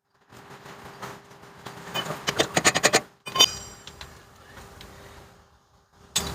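Hand tools on metal: a rapid run of clicks about two seconds in, then a single sharp metal clink that rings briefly.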